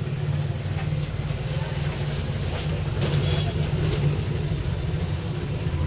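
Steady low mechanical rumble, like a running engine, with faint background voices.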